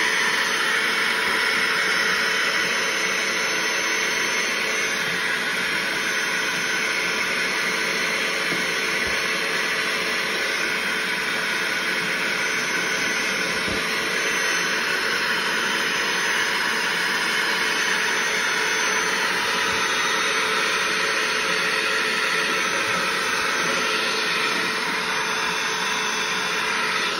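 Cordless handheld vacuum with a hose running steadily, sucking up drywall dust and bits along the floor: a rush of air under a steady high whine.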